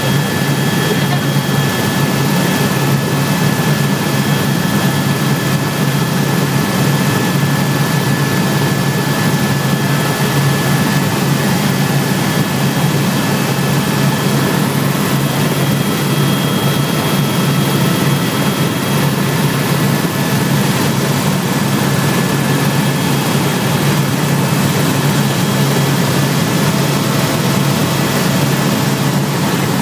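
Helicopter engine and rotor heard from inside the cabin in flight: a loud, steady drone with a thin, constant high whine over it.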